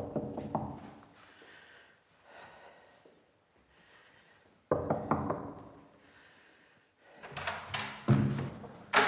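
Knocking with a fist on a wooden apartment door: a few raps at the start and a quick run of three knocks about five seconds in. Louder thumps and clatter near the end as the door is opened.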